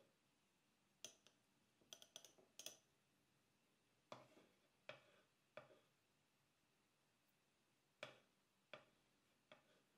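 Faint, sharp taps and clicks of a flat stainless steel grater being handled and knocked against a wooden cutting board, about a dozen in three small clusters.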